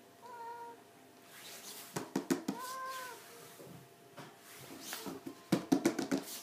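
A 17-year-old cat meowing twice, with short calls about two seconds apart, the second arching up and down in pitch. Quick runs of sharp clicking knocks come around two seconds in and near the end.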